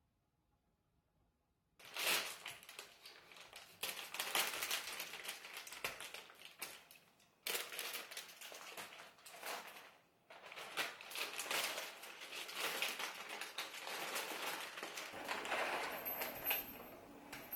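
Foil bag of dry cat food crinkling and crackling as it is handled, with dry kibble poured from it into a ceramic bowl near the end. The first two seconds are near silence.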